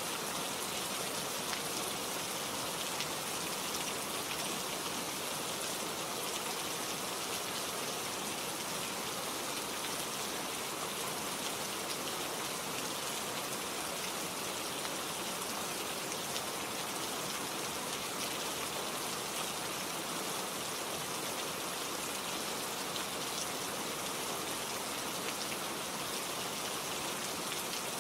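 Steady rain falling, with fine patter of drops landing on leaves.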